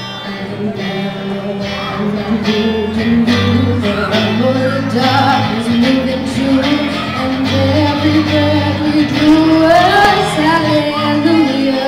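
Live band playing a song, with a woman singing the melody over electric guitar, bass notes and a steady drum beat.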